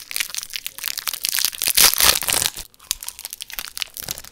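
Clear plastic snack wrapper crinkling as it is pulled open by hand close to the microphone. A dense run of crackles is loudest about two seconds in, then thins to scattered crackles.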